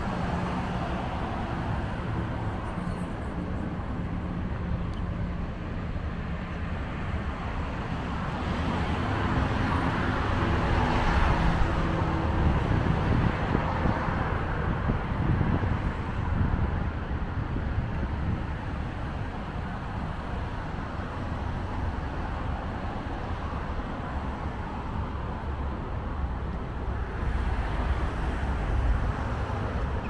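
Steady road traffic, cars passing on a busy road, growing louder about a third of the way through as vehicles go by. An engine's hum is heard in the first few seconds.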